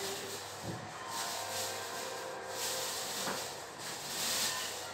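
Repeated rubbing strokes: a hissy swish about once a second, with a longer one in the middle.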